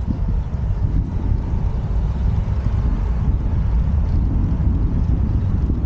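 Wind rushing over the camera microphone on a moving bicycle: a steady, loud low rumble.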